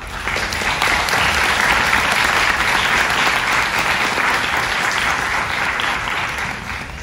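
Audience applauding. The clapping swells over the first second, holds steady, and tails off near the end.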